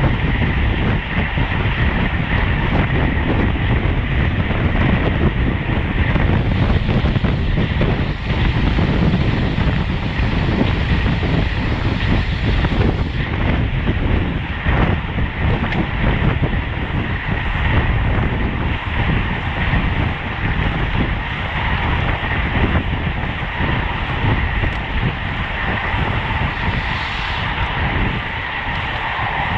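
Steady wind rush over the microphone with tyre and road noise from a road bike racing at speed.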